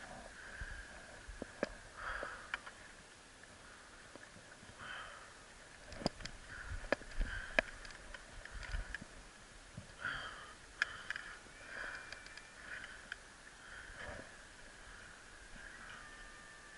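A person breathing and sniffing close to the microphone, with a few sharp clicks and knocks from moving gear.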